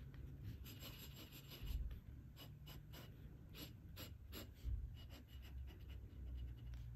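Glass dip pen scratching on paper in many short strokes, as a name, loops, lines and a heart are written out. Two soft low bumps, about two seconds in and again about five seconds in.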